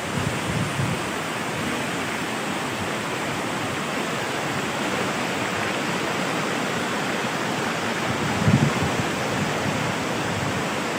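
Waterfall rushing: a steady, even roar of falling water, with a few short low thumps, the loudest about eight and a half seconds in.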